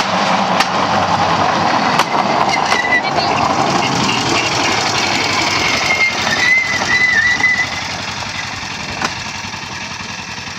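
Cambodian bamboo train (norry), a flat deck on two rail axles driven by a small engine, running along the track: the engine running with its wheels on the rails and occasional sharp clacks. A thin high squeal wavers for about a second around six and a half seconds in, and the noise falls off after about eight seconds.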